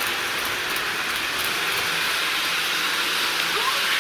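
Lionel LionChief Hogwarts Express O gauge model locomotive running on its track, a steady hissing running noise.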